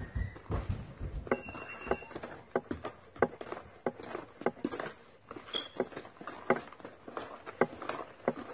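Electric hand mixer beating eggs into creamed butter for a cake batter in a bowl, its beaters knocking and clattering irregularly against the bowl's sides. There is a brief high whine about a second in.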